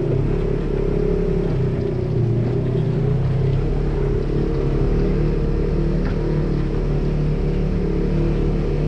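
Polaris RZR side-by-side's engine running steadily at an even pitch as the machine crawls along a rocky trail.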